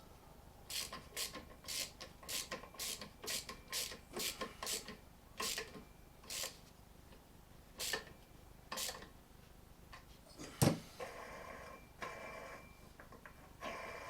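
Hand-tool work on a chainsaw during disassembly: a run of short ratchet-like clicking strokes, about two a second, that thins out and stops, then one sharp knock.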